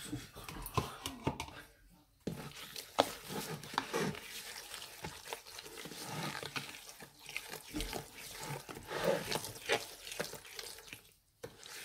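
Utensil stirring a thick, wet marinade of yogurt, oil and spice paste in a pot, with irregular wet noise and small clicks and knocks against the pot. The sound breaks off briefly about two seconds in and again near the end.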